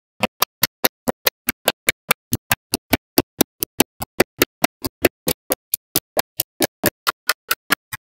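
Small magnetic balls clicking as blocks of them snap into place: a sharp, even click about five times a second, with silence between clicks.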